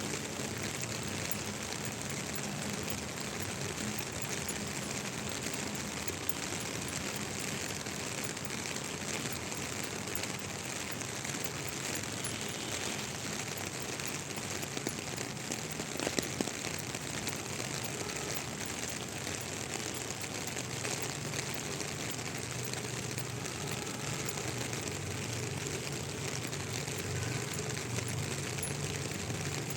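Steady rain falling, an even hiss. A brief knock comes about sixteen seconds in, and a low hum grows stronger over the last several seconds.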